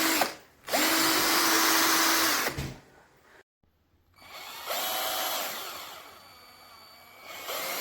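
Cordless drill-driver motor running in separate trigger pulls: a steady whine that starts and stops several times, with one run dropping quieter about two-thirds of the way through before it picks up again near the end.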